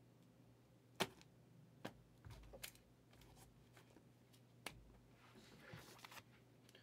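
Near silence with a few faint, sharp clicks and taps from handling things on the table, spread over several seconds, and a soft rustle near the end.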